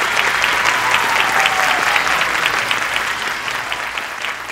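Audience applauding with dense, steady clapping that dies down near the end.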